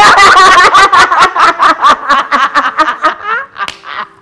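A man and a woman laughing loudly together in fast, pulsing bursts that die down after about three seconds.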